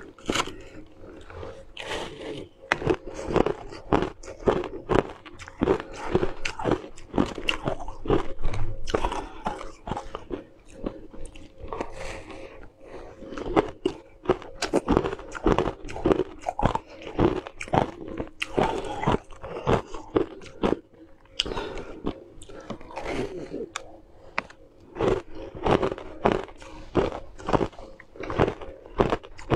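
Close-up biting and crunching of a hard, frost-covered frozen chunk, with chewing between bites; sharp crunches come in quick runs, several a second, with short pauses.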